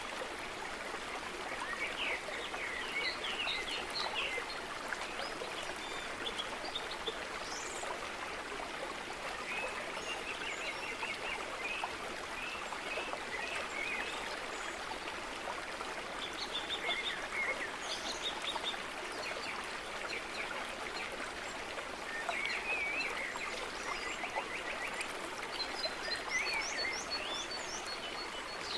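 Steady rush of running water, a stream ambience, with frequent high chirps and quick trills of small creatures calling over it.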